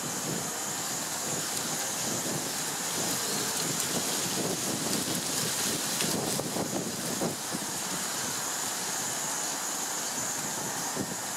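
Steady outdoor background noise: a broad rumble like wind or distant traffic under a constant high-pitched hiss, with no bird calls standing out.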